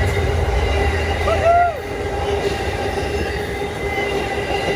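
A train passing close by on the main line: a heavy low rumble that eases off about a second and a half in, under steady high whining tones that run on throughout. A brief rising-and-falling tone sounds once, just before the rumble eases.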